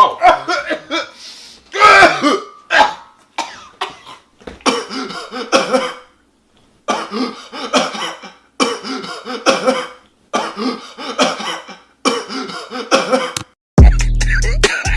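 A person's coughing and throat-clearing, cut into short bursts and repeated one after another as the material of a remix. A hip-hop beat with heavy bass comes in near the end.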